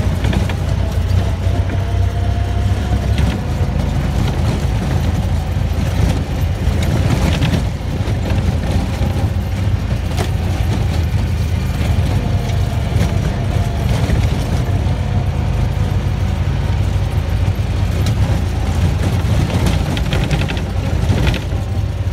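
Vehicle driving fast over rough, unpaved grassland: a steady low rumble of engine and tyres, with a few brief rattles and bumps.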